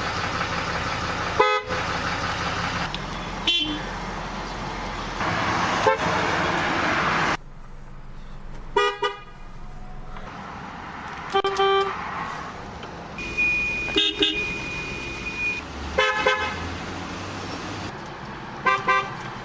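Car and truck horns, among them a Dodge Ram pickup's and a Jaguar's, each pressed for a short toot. Several are quick double toots, about eight in all, one vehicle after another over engine and cabin noise.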